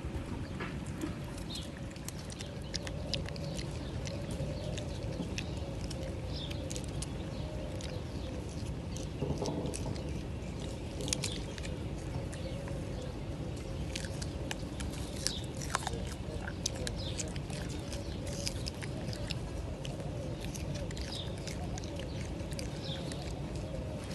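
Lar gibbon chewing fruit close to the microphone: scattered wet clicks and smacks of its mouth over a steady low background rumble.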